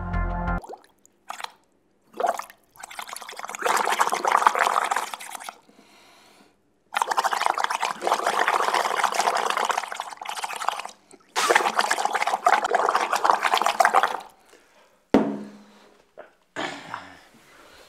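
Water bubbling and gurgling in a bottle as air is drawn through it by straws, a homemade bong, in three long spells of about three seconds each. A single sharp click follows near the end.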